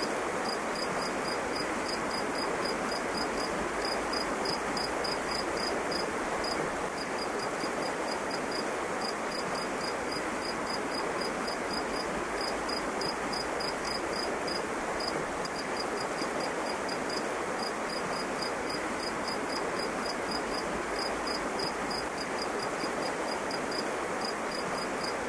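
An insect, cricket-like, chirping in short high pulses at about four a second, in runs with brief breaks, over a steady even background hiss.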